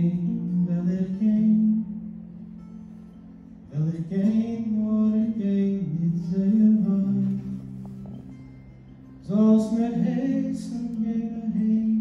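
Male voice singing a slow folk love song in Yiddish to his own strummed acoustic guitar. Two sung phrases break off, at about two seconds and at about seven and a half seconds, leaving the guitar alone and quieter for a second or two each time.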